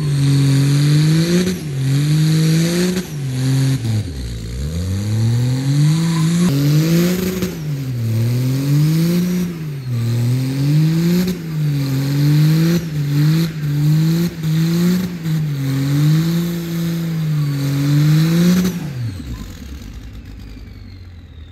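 Pickup truck doing a burnout: the engine is held at high revs that surge up and down every second or so while the tires spin, with a deep dip in revs about four seconds in. Near the end the revs fall away and the engine drops back.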